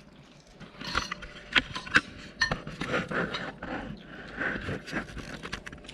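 Eating at the table: irregular clicks and scrapes, several a second, as the braised pork ribs are eaten.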